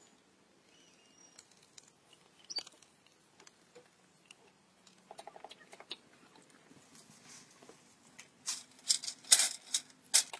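Scraping and tapping from hand work in dry earth: sparse faint taps at first, then a run of loud, sharp crackling scrapes from about eight seconds in.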